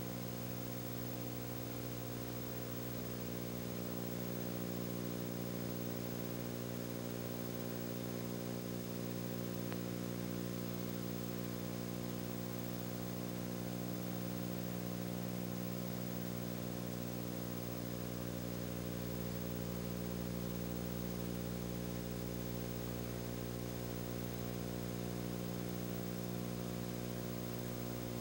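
Steady low buzzing hum that never changes and has no other sound over it.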